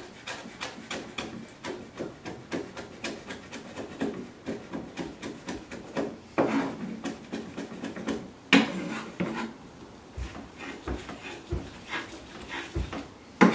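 A chef's knife chopping garlic on a wooden cutting board: a fast run of light taps, with two louder strokes partway through. Near the end come a few dull thumps as the blade is pressed down on the board to crush the garlic.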